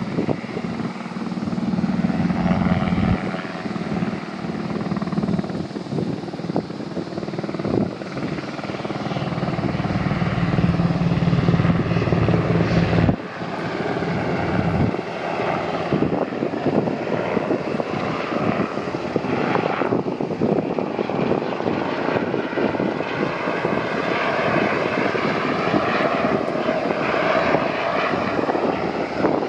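SH-60K naval helicopter flying past: steady rotor and turbine noise. Its level drops suddenly about 13 seconds in and then carries on steadily.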